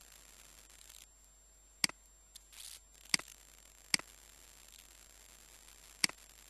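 Computer mouse button clicking: four sharp single clicks, unevenly spaced, with a brief soft rustle between the first two.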